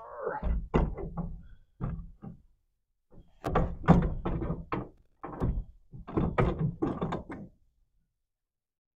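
Wooden sliding barn-door frame knocking and clattering on its steel roller hangers and overhead track as it is shifted along the rail. It comes in three runs of rapid knocks, the loudest in the middle.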